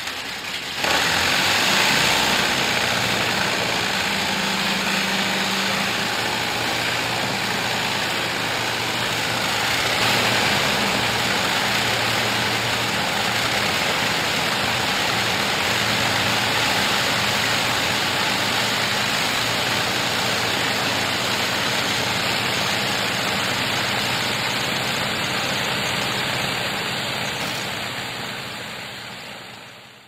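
Steady drone of piston aircraft engines, played as a sound effect: it swells in about a second in, runs evenly with a low hum, and fades out near the end.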